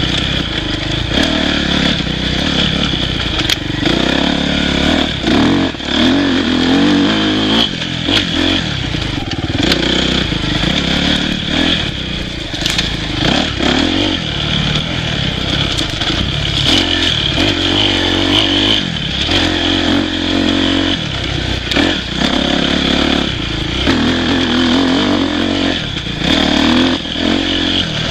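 Dirt bike engine revving up and down continuously as the bike is ridden over a rough trail, with scattered knocks and clatter from the machine over the bumps.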